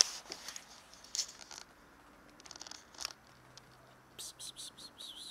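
Short rustles and a sharp click close to the microphone, then a quick run of high chirps, about six a second, starting about four seconds in.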